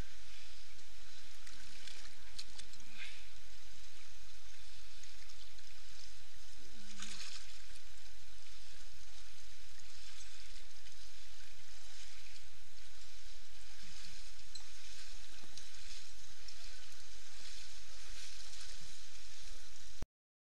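Steady rush of canyon river water, with sloshing and splashing as people wade through it. Faint voices now and then; the sound cuts off suddenly near the end.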